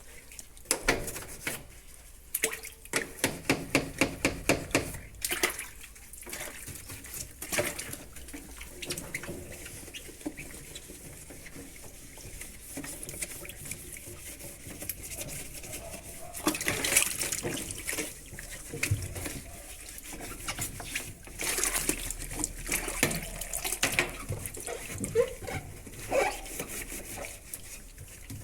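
Washing-machine part being scrubbed with a sponge in water: a quick run of rhythmic squeaking strokes a few seconds in, then splashing and running water.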